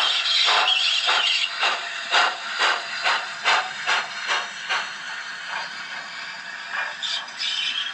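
Digital sound decoder in an OO gauge model locomotive playing a Thompson A2 Pacific steam locomotive getting under way. Steam hiss runs under exhaust chuffs at about two a second, quickening slightly; the chuffs fade after about five seconds and the hiss swells again near the end.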